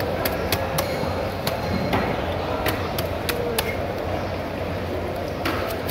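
Knife blade cutting into a whole fish behind the head, giving a series of short, sharp knocks and clicks on the cutting board and bones at an uneven pace, over a steady low hum.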